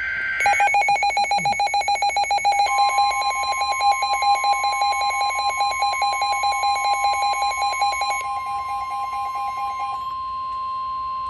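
The tail of a digital data burst, then a rapidly pulsing electronic alarm beep, joined about two and a half seconds in by the steady 1050 Hz NOAA Weather Radio warning alarm tone. The pulsing beep stops near the end while the steady tone holds on, signalling that a warning message is about to be read.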